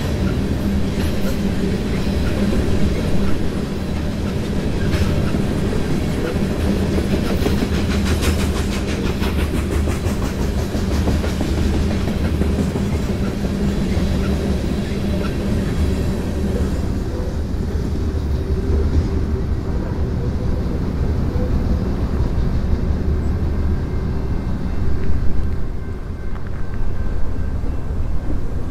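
Freight train of covered hopper cars rolling past fast: a steady rumble of steel wheels on rail with rapid clickety-clack and rattling. The sharper clatter fades partway through, leaving a lower rumble.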